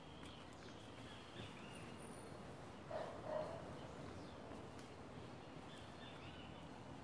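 Faint outdoor ambience with a dog barking twice in quick succession about three seconds in.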